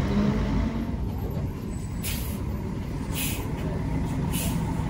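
Diesel coach engines idling, a steady low rumble, with three short hisses of released compressed air from the coaches' air systems about two, three and four seconds in.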